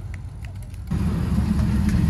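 A hot rod's engine fading as it pulls away. About a second in, the loud, low, steady running of a Pontiac Firebird Trans Am's V8 close by starts suddenly.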